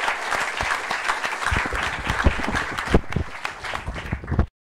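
Audience applauding, thinning toward the end, with low thuds from about a second and a half in. The sound cuts off abruptly just before the end.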